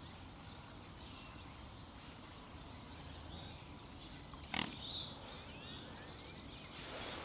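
Quiet waterside ambience with small birds chirping faintly and often in the distance. A single sharp tap comes about four and a half seconds in, and a short rush of noise near the end.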